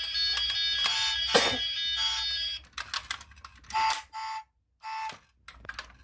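A die-cast toy car's built-in sound unit playing electronic sound effects through its tiny speaker. A buzzy sound with several steady tones lasts about two and a half seconds, then comes a few short beeps.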